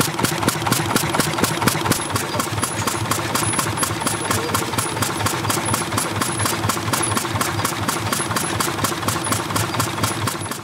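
Old stationary engine running steadily, with an even beat of about four or five knocks a second.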